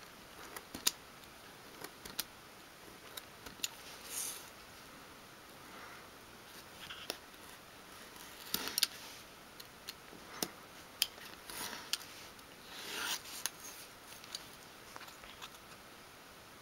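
Craft knife blade cutting along a curve in thin wood sheet: faint, irregular scratchy strokes and small clicks, with a few louder scrapes about 4, 9 and 13 seconds in.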